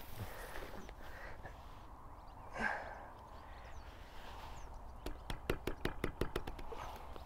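A quick run of about ten sharp clicks or taps over roughly a second and a half, near the end, against a quiet outdoor background with one brief soft sound about two and a half seconds in.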